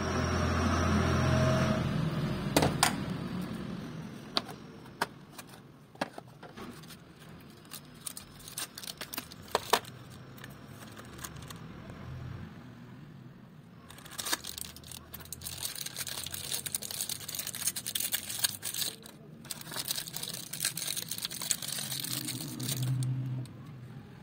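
Workshop handling sounds: a low hum at the start, then scattered clicks and clinks of metal engine parts being handled, followed by a long stretch of crinkling and rustling as a new ball bearing is unpacked from its cardboard box and plastic wrapping.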